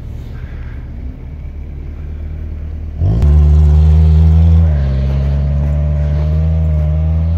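A low engine rumble, then about three seconds in a nearby off-road 4x4's engine revs up sharply and holds loud, steady high revs as it drives through deep snow, easing slightly in pitch a moment later.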